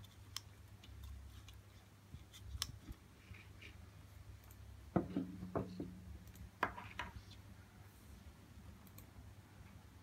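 Handling of a digital dial indicator and its cable lifter: a few light clicks, then a cluster of sharp knocks about five to seven seconds in as the gauge is set down on the tabletop, over a low steady hum.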